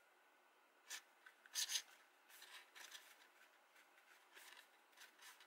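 Cardstock handled and pressed together, a glued card piece being stuck into place: a crisp paper crackle about a second in, two louder ones just after, then softer rustling and rubbing.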